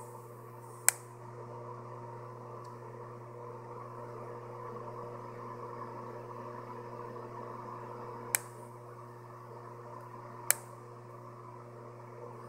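Steady low machine hum, with three sharp clicks: one about a second in, then two more about two seconds apart later on.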